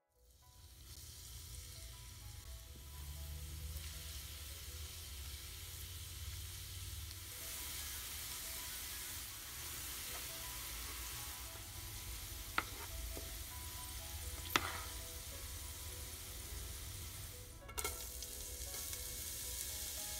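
Chopped garlic sizzling as it fries in hot ghee, stirred with a wooden spatula, with a few sharp taps of the spatula against the pan.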